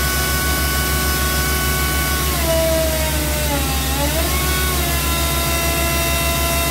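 A new crawler drilling rig and its portable air compressor running steadily during commissioning, with a deep even engine hum and a high whine. Halfway through, the whine drops in pitch and then climbs back up.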